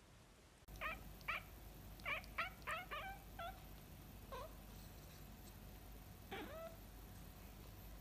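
Domestic cat giving a series of short meows, about seven in quick succession within the first few seconds, then a single meow and one longer meow near the end.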